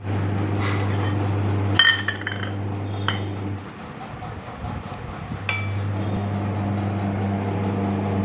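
Small stainless steel bowl clinking against a hard floor as a baby handles it: a few sharp, ringing clinks. Under it runs a steady low hum that drops out for about two seconds midway.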